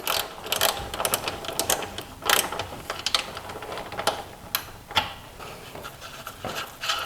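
Hand tools working on the car's front suspension bolts: a string of irregular metallic clicks, clinks and short rattles.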